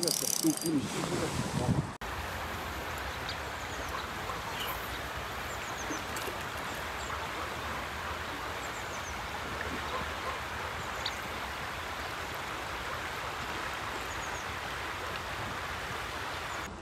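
Steady rushing of a fast-flowing river running high, with a few faint, short high chirps over it. It follows about two seconds of louder, uneven noise at the start.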